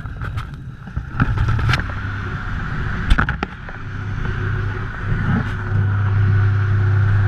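Plastic airport security tray carried along a conveyor into an X-ray scanner: a low mechanical rumble with several knocks and clatters of the tray in the first half, the rumble growing louder and steadier in the second half.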